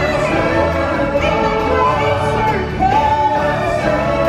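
Stage-show music with singing: a lead voice carries a gliding, held melody over backing voices and instruments.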